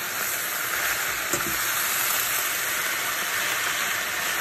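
Chopped mallow leaves with onion and garlic sautéing in a stainless pan: a steady sizzling hiss, with one light click about a second and a half in.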